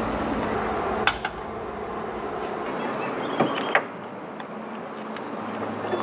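Mechanical clicks of a Datsun 280Z's bonnet being opened: one sharp click about a second in as the hood release is pulled, then two more clicks a little after halfway as the catch is freed and the bonnet is lifted, over a steady background hiss.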